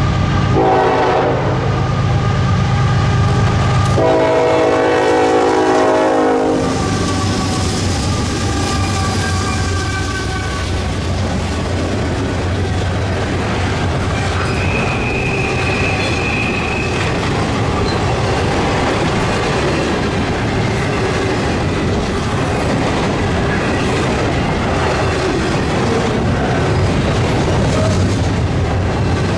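Norfolk Southern freight locomotive sounding its horn as it passes: a short blast about half a second in, then a longer one from about 4 to 6.5 seconds, over the diesel engine's rumble. Then a double-stack container train rolling past with steady wheel clatter on the rails and a brief high squeal around 15 seconds in.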